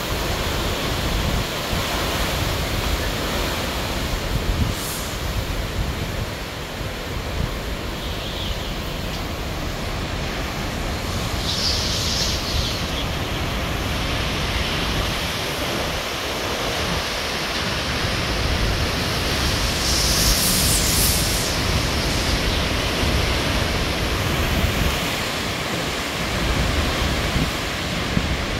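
Hurricane wind rushing steadily through palm fronds and trees, with low gusts buffeting the microphone and louder hissing surges about twelve seconds in and again about twenty seconds in.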